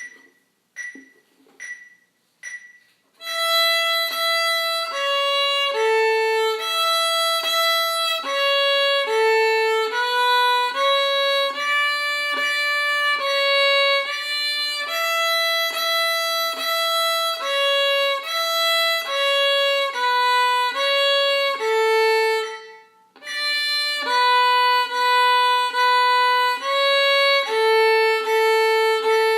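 Solo violin playing a simple melody, one bowed note to each beat at about 72 beats a minute, after four clicks counting it in. The playing breaks off briefly once before carrying on.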